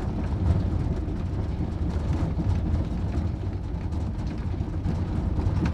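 A car driving over a desert track, heard from inside the cabin: a steady, low rumble of engine and tyres.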